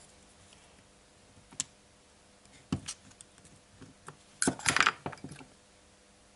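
Light metallic clicks and clatter of a screwdriver and small parts on an angle grinder's metal gear head while it is unscrewed and its cover lifted off. A few single clicks come first, then a denser clatter about four and a half seconds in.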